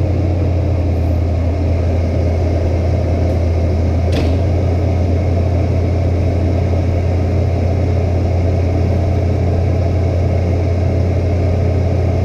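Diesel engine of a CAT 304CR mini excavator running steadily with a strong low hum, and one brief sharp click about four seconds in.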